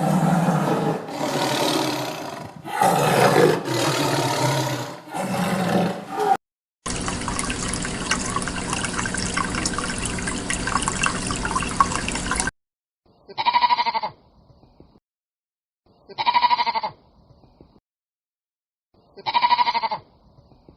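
Sheep bleating across several edited clips. There is a dense run of bleats for about six seconds, then a stretch with a steady background hiss, then three short, identical calls about three seconds apart.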